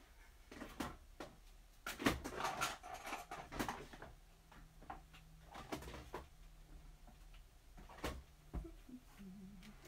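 Scattered clicks and knocks of someone rummaging for things, a drawer or cupboard handled and items picked up, busiest about two to four seconds in.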